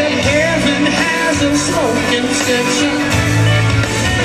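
Live band playing through a large concert sound system, heard from the crowd: electric guitar over held bass notes that change every second or so, in an instrumental gap between sung lines.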